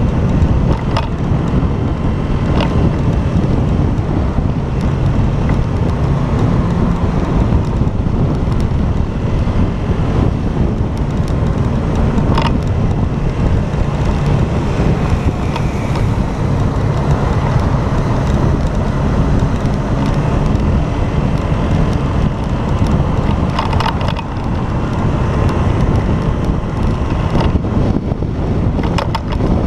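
Motorcycle on the move, its engine running under heavy wind noise on the camera's microphone, with a few brief knocks.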